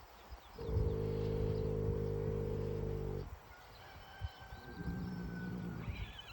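A horse snoring: one long, loud, low snore of about two and a half seconds, then a softer, shorter one near the end.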